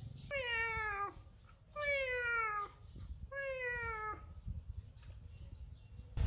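Tabby kitten meowing three times, about a second each, each meow falling in pitch.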